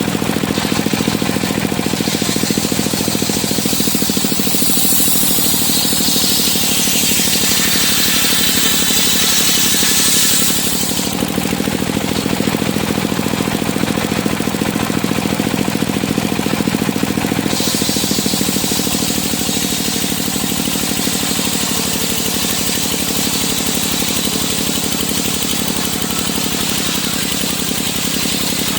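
Engine-driven circular sawmill running steadily, with a high hiss from about two seconds in until about eleven seconds, and again from about seventeen seconds on, as the blade cuts through wood.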